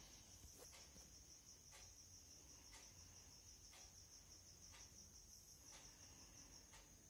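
Near silence: a faint, steady, high-pitched insect trill, with a faint tick about once a second.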